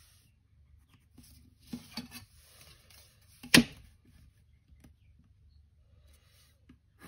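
A clear plastic 45-degree set square being slid and repositioned over drawing paper while a pencil rules lines: soft rubbing and scraping, with one sharp tap about halfway through.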